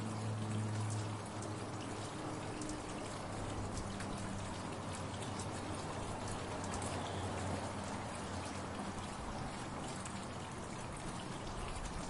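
Small fountain splashing and trickling steadily, with many small droplet splashes. A low hum fades out in the first second or two.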